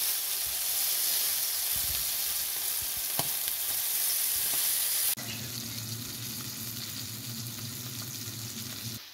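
Whiting fillets sizzling steadily in hot oil and butter in a stainless steel frying pan, with a single light click about three seconds in. About five seconds in, the sizzle suddenly drops quieter and a low steady hum joins it.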